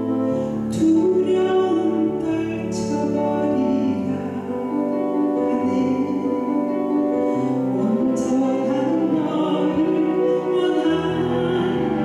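A woman singing a Korean gospel song into a handheld microphone over instrumental accompaniment with held bass notes.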